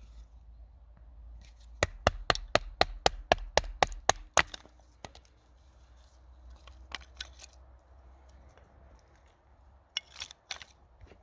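A quick run of about ten sharp knocks, roughly four a second, then two more knocks near the end, like wood being struck during work on a shelter.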